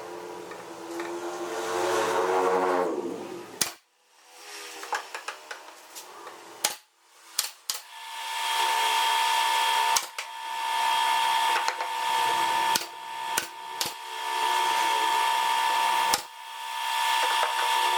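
Small electric power tool motor running, slowing and stopping about three seconds in, then several seconds of clicks and knocks. It starts up again and runs at steady speed, cut off briefly and spun back up several times.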